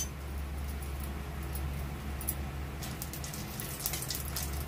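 Dried red chillies frying gently in hot mustard oil in a metal kadhai, a soft sizzle with scattered crackles that grow busier in the last second or two as a spatula stirs them, over a steady low hum.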